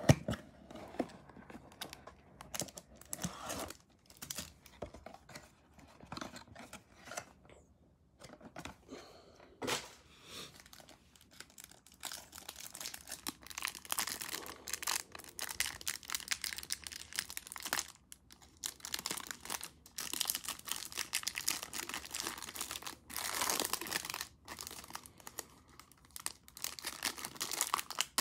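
A cardboard trading-card hanger box being torn open, then the plastic shrink-wrap around the stack of cards crinkling and tearing. It is an irregular crackle that grows denser about halfway through.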